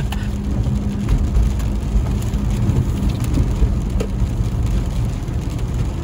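Car driving on a wet road in rain, heard from inside the cabin: a steady rumble of road and engine noise, with rain hitting the car and scattered light ticks.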